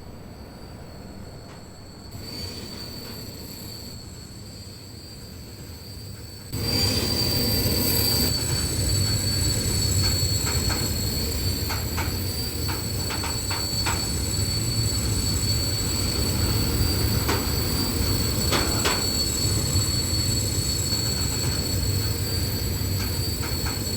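Rail vehicle brakes squealing: steady high-pitched squeal tones over a low running rumble, which gets suddenly much louder about six and a half seconds in, with scattered clicks.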